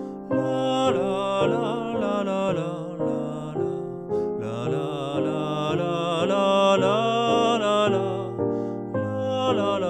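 A recorded melody sung in a single part on 'la la la', with piano accompaniment.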